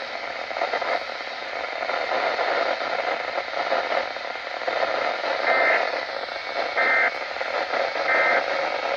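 Weather radio receiver hiss and static after the spoken warning, with three short two-tone digital data bursts about a second and a half apart in the second half: the EAS end-of-message code that closes the alert broadcast.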